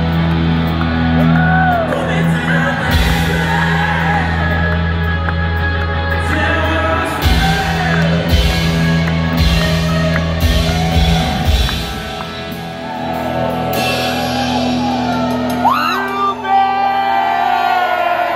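Live rock band playing with the lead singer singing, echoing in a concert hall and recorded from the crowd, with whoops and shouts from the audience. About twelve seconds in the bass and drum hits drop out, leaving the voice over a quieter backing.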